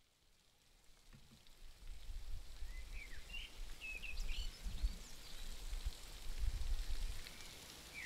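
Nature ambience fading in: a steady rain-like hiss with several short bird chirps a few seconds in, and low rumbles now and then.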